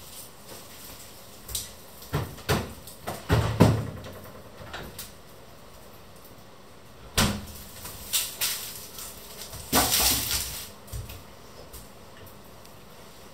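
Kitchen handling sounds: a run of knocks and clatters over the first few seconds and a sharp knock about seven seconds in. About ten seconds in comes a rustle as an orange plastic mesh produce bag is set down on the wooden table.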